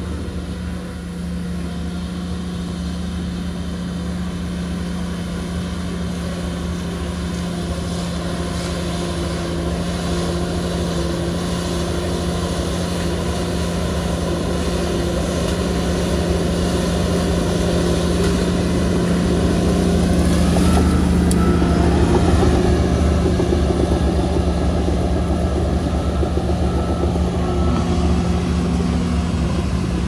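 Komatsu bulldozer's diesel engine running steadily under load while pushing sand, growing louder through the middle and easing off near the end.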